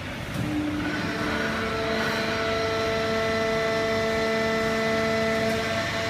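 Fully automatic horizontal hydraulic paper baler with its feed conveyor running. It is a steady machine noise with a layered whine of several steady tones, which sets in about half a second in and grows slightly louder.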